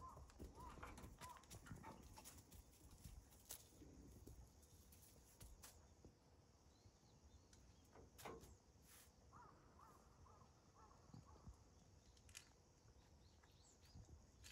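Near silence at a goat pen: a few faint knocks and light movement from goats shifting about in the straw, with some faint short chirps near the start and again about two-thirds of the way through.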